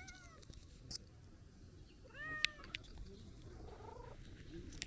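Calico cat meowing: a short meow at the start, then a louder meow that rises and falls about two seconds in, and a fainter one near the end.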